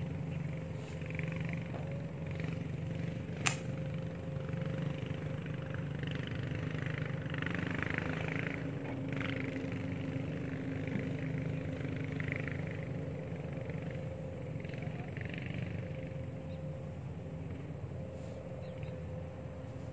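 A steady low hum from a distant motor, with one sharp click about three and a half seconds in.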